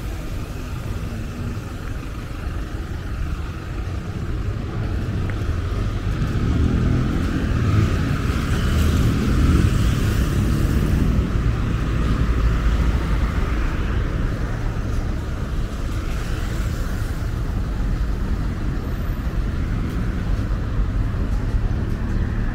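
City road traffic: a steady rumble of passing vehicles that swells for several seconds about a third of the way in, as a vehicle goes by.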